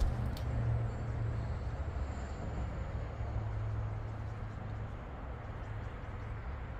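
Steady low engine drone from a motor running at idle, with a couple of light knocks right at the start as log sections are handled.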